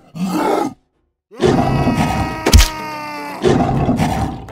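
Cartoon fight sound effects: animal groans and grunts, with one heavy punch thud about two and a half seconds in.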